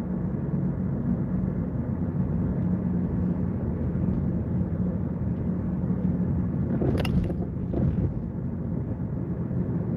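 Car interior noise while driving: a steady low rumble of engine and tyres on the road, with two brief clicks about seven and eight seconds in.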